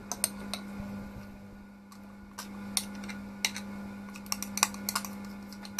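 A spoon clinking and scraping against a glass mixing bowl and a metal loaf tin while thick banana bread batter is scooped out. The clinks come as irregular sharp taps over a faint steady hum.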